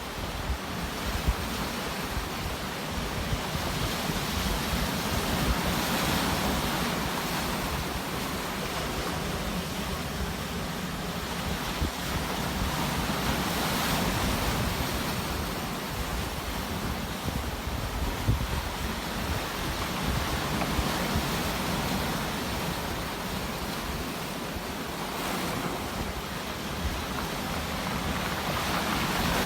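Sea waves breaking and washing ashore, the surf swelling and easing every few seconds.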